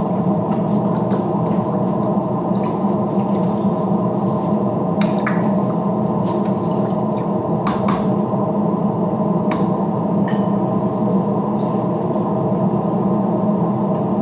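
Range hood exhaust fan running with a steady hum. A few light clicks from a wooden spoon knocking the rim of a metal stockpot while stirring.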